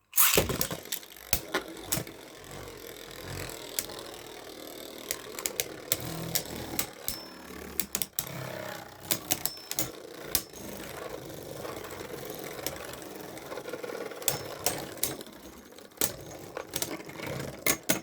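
Beyblade Burst spinning tops whirring and grinding in a plastic stadium, with many sharp clacks as they collide. The sound starts abruptly at the launch.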